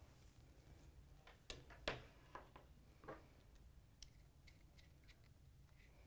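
Faint clicks of a ratcheting MC4 crimping tool being squeezed partway to hold a connector terminal in its jaws: a handful of clicks in the first half, then lighter ticks of small plastic parts being handled.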